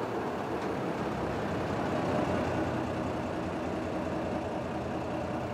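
Diesel engine of a small Köf shunting locomotive running steadily as it moves off to draw a steam locomotive out of its shed.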